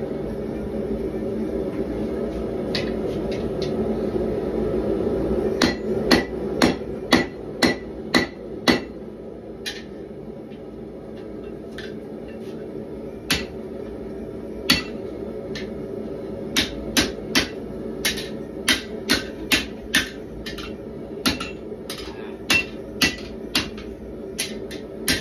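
Hand hammer striking a red-hot 1095 steel knife blank on an anvil. There is a quick run of about seven blows around six seconds in and a couple of single blows, then steady hammering at about two blows a second from about sixteen seconds on. A steady hum from the propane forge runs underneath.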